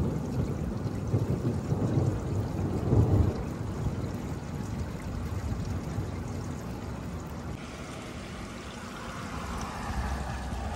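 Rolling thunder rumbling, strongest about three seconds in and then dying away, over the steady noise of rain.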